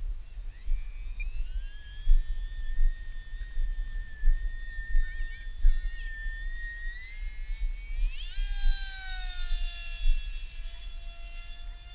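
Electric motor and propeller of a Stryker RC flying wing, run on a 4S lithium-polymer pack, whining in flight. The whine holds steady, then climbs sharply in pitch about eight seconds in and slowly drops again. Wind rumbles on the microphone throughout.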